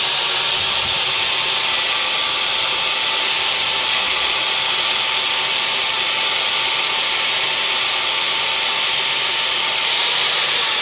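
Angle grinder with an 80-grit flap disc grinding the cutting edge back onto a steel lawn mower blade: the motor's steady whine under a loud, even hiss of abrasion. The disc comes off the blade near the end.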